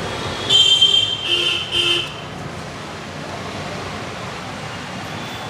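A vehicle horn honks three times in quick succession over a steady background of street traffic.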